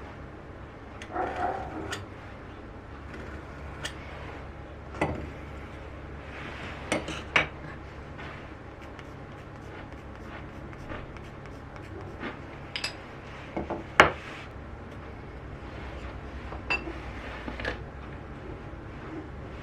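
Irregular knocks and metallic clinks of hand tools and wood being handled on a workbench, a dozen or so separate hits, the sharpest about two-thirds of the way through, over a steady low hum.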